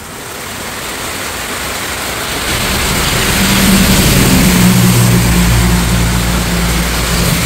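Heavy rain pouring down while a tractor-trailer truck approaches and passes along the flooded road, its steady engine drone growing louder from about two and a half seconds in and staying loud through the rest.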